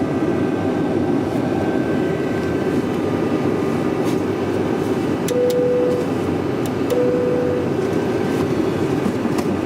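Steady rumble and rush of air and engine noise in a Boeing 757-200 flight deck in flight. About halfway through come two short beeps of the same pitch, about a second and a half apart, and a few sharp clicks.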